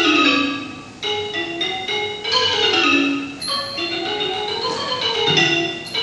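Ranat ek, the Thai boat-shaped wooden xylophone, played solo in a classical Thai piece: quick runs of struck, ringing notes on its wooden bars.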